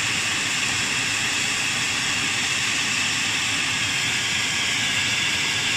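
Welding equipment giving a steady hiss with a faint high whine, unchanging throughout.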